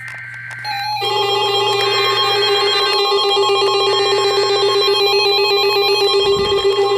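Emergency Alert System broadcast tones: a short burst of high two-pitch data tones, then about a second in a loud, steady electronic alert tone takes over, several pitches sounding together with a fast, bell-like pulsing.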